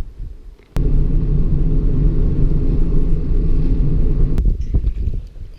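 A loud, steady low rumble that starts suddenly about a second in and cuts off suddenly after about three and a half seconds.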